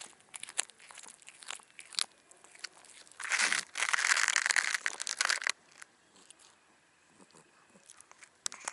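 Black cat chewing a raw fish close up, with sharp wet crunches as it bites through it. About three seconds in comes a louder stretch of dense crunching lasting about two seconds, then a few scattered quieter crunches.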